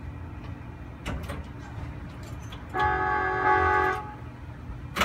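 Tokyu Setagaya Line tram running with a low rumble, and a single steady horn toot lasting just over a second, about three seconds in.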